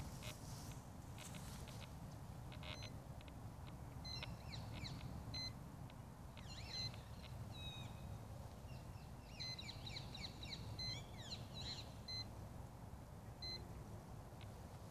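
Faint steady low wind rumble on the microphone. About four seconds in it is joined by a scatter of short, high electronic beeps and quick chirping bird calls that come thickest around ten to twelve seconds in.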